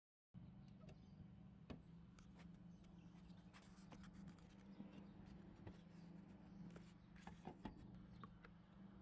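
Faint steady low hum with scattered light clicks and taps.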